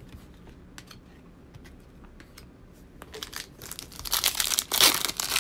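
Foil wrapper of a trading-card pack being torn open and crinkled. It starts about three seconds in and is loudest near the end, after a few light clicks of cards being handled.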